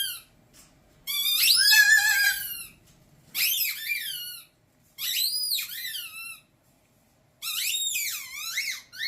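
Umbrella cockatoo making a high, wavering call four times with short pauses between, the pitch bending up and down within each call.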